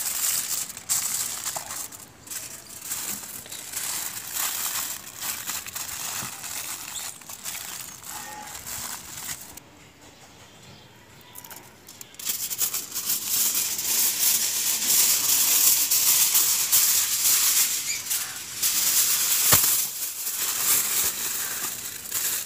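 Aluminium foil crinkling and crumpling as it is folded over and pressed around a whole fish. The crinkling eases off about ten seconds in, then comes back louder for the second half.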